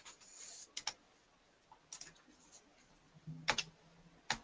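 Faint, sharp clicks at a computer, coming in close pairs about a second in and again about three and a half seconds in, with one more near the end, as the slides are clicked through during a computer error.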